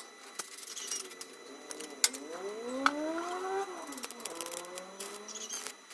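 Stick welding with a small inverter arc welder on a steel frame: irregular crackling and sputtering from the arc, thickest near the end. In the middle a separate pitched drone rises and then falls over about two seconds.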